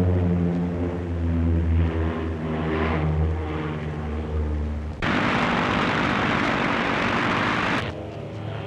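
Propeller-driven fighter aircraft engines droning. About five seconds in, the sound switches abruptly to a loud rushing noise for about three seconds, then returns to the droning note.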